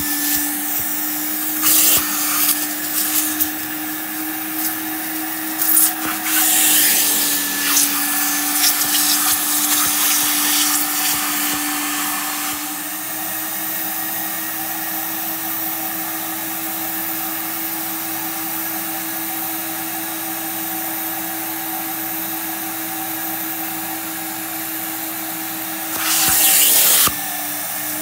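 Janilink portable carpet extractor's vacuum motor running with a steady whine while its clear upholstery tool is drawn over couch fabric. Loud hissing bursts come several times in the first half and once near the end, as the tool sprays and sucks water out of the upholstery.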